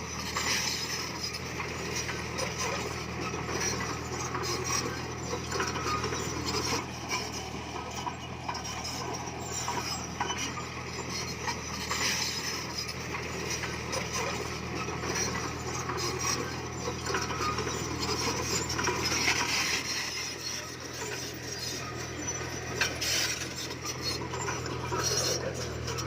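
Komatsu D20P bulldozer's diesel engine running steadily, with irregular clanking and scraping from its tracks and the stone it pushes.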